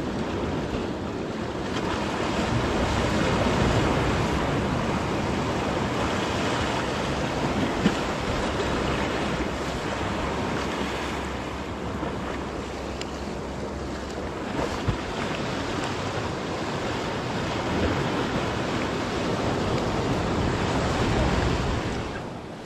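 Sea surf breaking and washing against shoreline rocks, swelling and easing in loudness, with wind noise on the microphone. Two brief knocks, one about a third of the way in and one past the middle.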